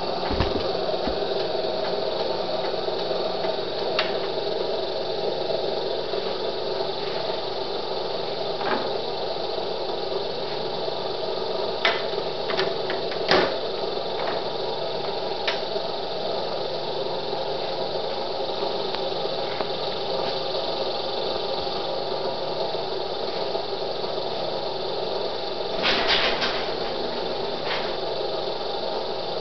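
Steady electrical hum and buzz from a running homemade HHO electrolysis rig with a pulsed ground circuit. A few short knocks and clicks come about halfway through and again near the end as its steel box is handled and opened.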